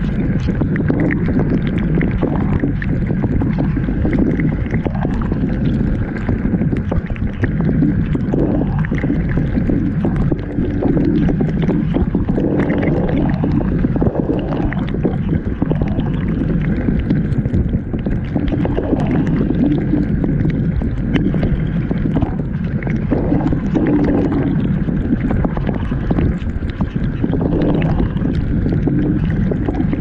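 Dishwasher running, heard from inside the machine: water spraying and sloshing over the camera under a steady low hum.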